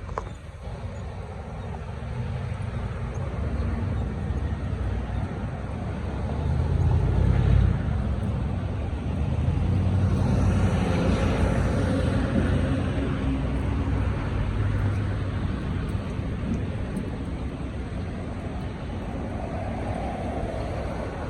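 City street traffic: a steady rumble of vehicles, swelling twice as vehicles pass close, about a third of the way in and again near the middle.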